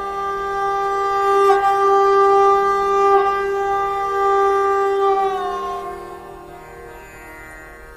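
Instrumental intro music: one long held wind-instrument note, which dips slightly in pitch about five seconds in and then fades away.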